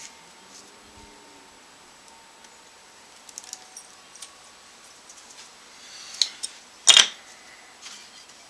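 Wooden guitar body pieces being handled and fitted together on wax paper over a granite slab: a few light clicks and a rustle, then one sharp knock about seven seconds in.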